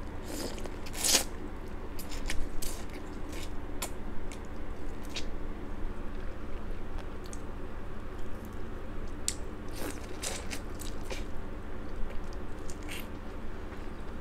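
Biting into boiled corn on the cob and chewing: bursts of short, crisp crunches as the kernels are bitten off and chewed, over a steady low hum.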